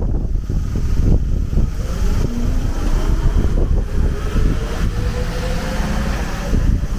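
Strong typhoon wind buffeting the microphone: a loud, uneven low rumble that swells and drops with the gusts. A faint rising whine runs through the middle.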